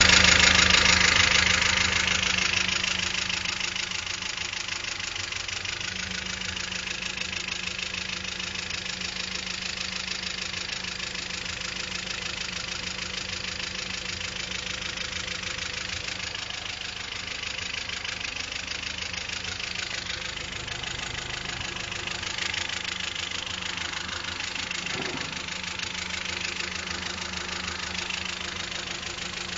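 Car engine idling: louder for the first few seconds, then settling to a steady idle.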